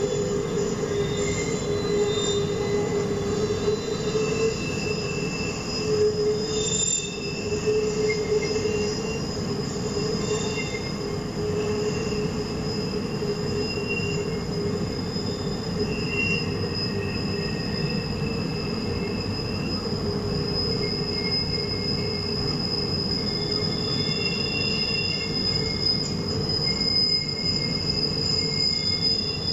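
Norfolk Southern maintenance-of-way camp train cars rolling past on a sharp curve. A steady rumble runs under a high wheel-flange squeal at several pitches, with shorter squeals coming and going, as the wheels grind against the rail on the curve.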